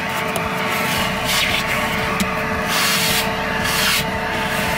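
Vacuum cleaner running with a steady motor whine, its narrow tube nozzle sucking dust from between books on a shelf. The rush of air swells and fades about once a second as the nozzle is pushed around and rubs against the books.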